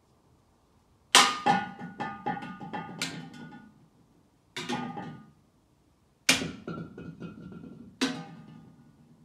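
Hollow plastic mannequin head swinging on a chain and knocking against other mannequin heads. It comes in four bouts of hard knocks: two of them are quick runs of several knocks and two are single knocks, and each knock rings briefly with a hollow tone.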